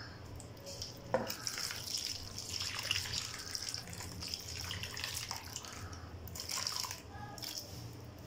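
Water poured from a jug into a plastic bowl of cream, splashing and trickling for about six seconds, with one sharp knock about a second in; the water is being added to the cream before it is beaten into butter.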